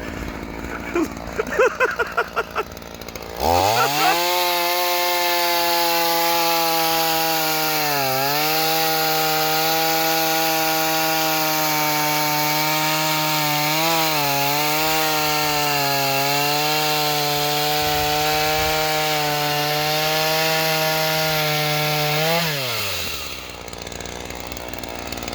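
Small Ryobi gas chainsaw, a two-stroke, idling briefly, then opened up to full throttle about three seconds in and held there, cutting through a log for nearly twenty seconds. Its pitch dips twice under load in the cut, then drops back to idle near the end.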